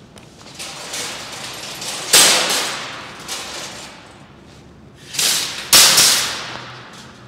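Metal wire shopping carts clattering as one is pulled free from a nested row: a sharp clang about two seconds in, then two more close together near the end, each with a rattling tail.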